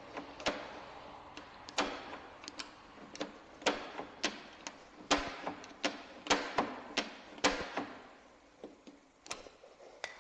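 Ford Focus door lock mechanism clicking and clacking as it is worked, with about fifteen sharp clicks at irregular intervals, thickest in the middle.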